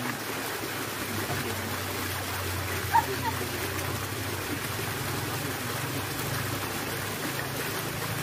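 Steady rush of running water, with a low steady hum underneath. A short sharp sound stands out about three seconds in.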